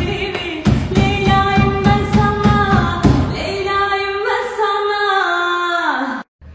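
Arabic pop song: a singer holds long notes over a steady drum beat. About halfway the beat drops out, the last held note slides downward, and the track cuts off abruptly near the end.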